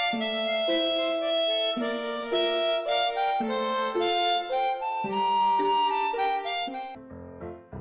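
Background music: a melody of held notes with rich overtones, changing note about every half second to second. It stops about seven seconds in as a different tune begins.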